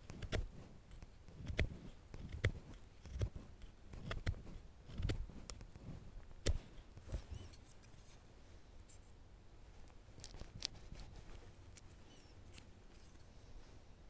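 Freshly stropped knife blade of a Boker Plus Tech Tool 7 multitool cutting into a wooden stick: a series of short carving strokes, about one a second, for the first six or seven seconds, then fainter scrapes and small ticks.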